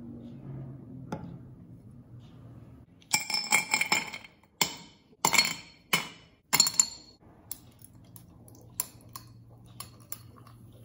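Glassware clinking: a quick run of sharp, ringing clinks about three seconds in, then a few lighter ticks.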